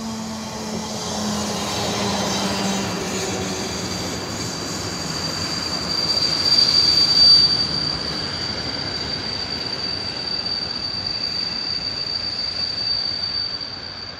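A train passing on the tracks: the rolling rumble of the cars with a steady high-pitched wheel squeal that runs throughout and peaks about halfway through.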